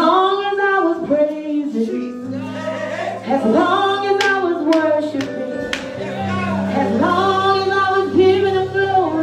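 A woman singing solo into a handheld microphone in long held, sliding notes, over steady low sustained accompaniment notes.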